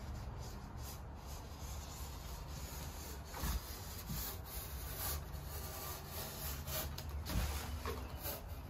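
Utility knife blade scoring a 2-inch Owens Corning Foamular XPS rigid foam board along a marked line, a steady scraping drag with a couple of louder strokes.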